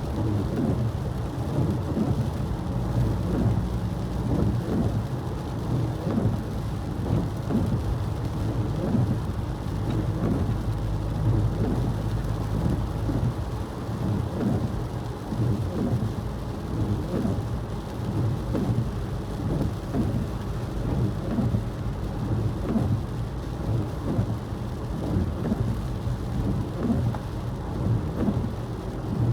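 Steady low rumble of a car driving on a road wet with snow and rain, with a constant irregular flutter and no break.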